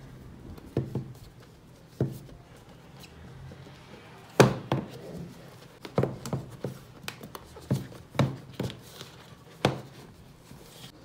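Irregular knocks and taps of a cardboard iPad Air 4 box being handled against a desk as its lid is worked loose. The loudest knock comes a little over four seconds in, and quick clusters of them follow in the second half.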